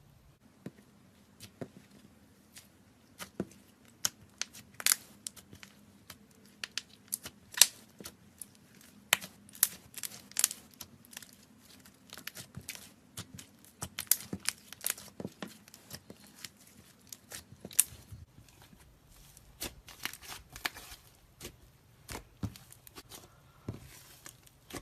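Slime being squeezed and pressed by hand, giving irregular sharp crackles and snaps, with a denser crackling run near the end.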